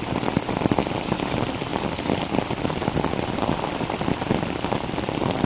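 Steady rain falling, with a dense patter of close drop hits.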